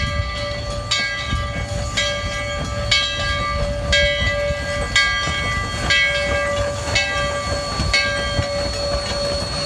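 Bell ringing about once a second over the low running rumble of narrow-gauge steam locomotive D&RGW 346, a C-19 class 2-8-0, moving slowly through a grade crossing.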